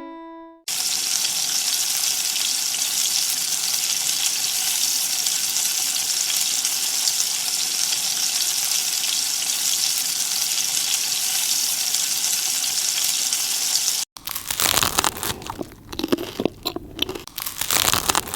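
Puris deep-frying in hot oil: a steady sizzle for about thirteen seconds, cutting off suddenly. Then comes irregular crunching and tearing.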